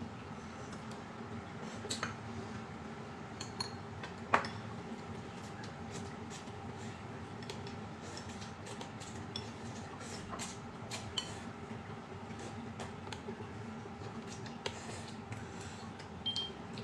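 Tableware clinking during a meal: scattered light clicks of utensils on dishes, the sharpest about four seconds in, some ringing briefly. A steady low hum runs underneath.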